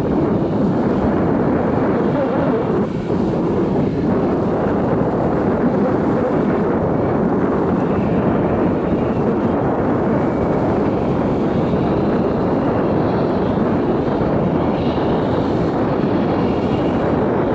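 Jetboat's gas-turbine jet engine running at speed, a steady loud rush of jet noise with wind on the microphone. A faint high whine comes in over the second half.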